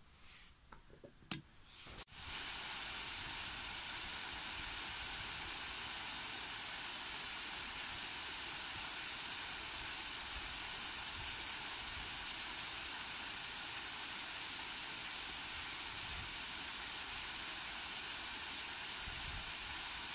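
Steady rushing of water spilling down a stepped rock waterfall, starting abruptly about two seconds in. Before it, a quiet room with a single sharp click about a second in.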